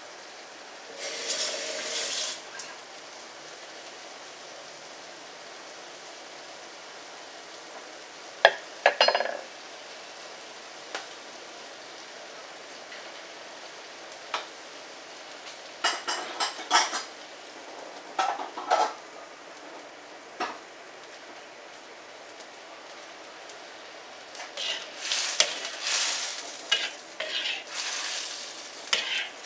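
Thick curry sauce sizzling and bubbling in a black wok over a gas flame, a steady hiss with scattered pops and clicks. Near the end a spatula stirs the sauce and scrapes against the wok.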